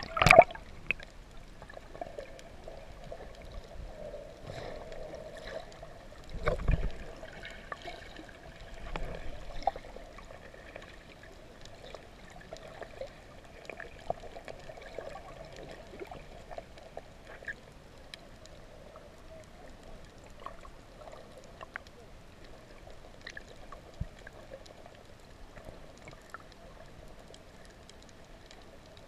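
Underwater ambience picked up by a camera submerged over a coral reef: a steady muffled water hiss with scattered small clicks. A loud sharp knock comes right at the start, and a low thud about six to seven seconds in.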